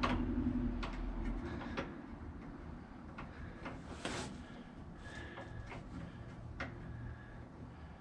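Scattered clicks and knocks of tools and small parts being handled, with a brief hiss about four seconds in. A low hum stops about a second and a half in.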